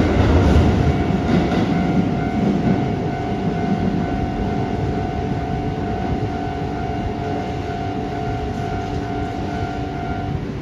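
Keisei 3400 series electric train pulling away over the points, its low rumble fading as it goes. A steady high tone holds under it and stops near the end.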